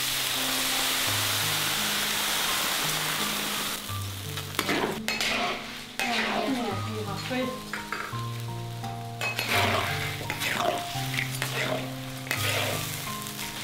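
Crayfish sizzling in hot oil in a large iron wok, a dense sizzle for the first few seconds, then a metal spatula scraping and turning them in the wok. Soft background music plays underneath.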